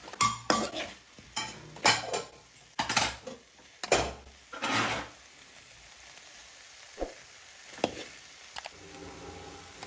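A long metal ladle stirring and scraping cauliflower bhaji around a metal kadai, with the vegetables sizzling on the heat. Quick scraping strokes come over the first five seconds, then it goes quieter with a couple of light taps near the end.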